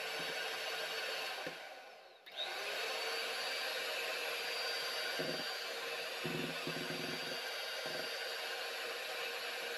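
Kenwood 250-watt hand mixer running, its twin beaters whisking egg whites in a plastic bowl with a steady electric whir. About two seconds in the motor winds down almost to silence and then starts up again, and a few low knocks come in the second half.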